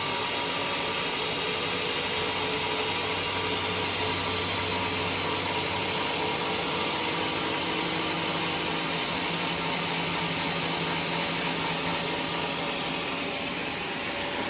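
A woodworking power machine running steadily, with a dense whine and hiss; its low hum shifts up in pitch about halfway through.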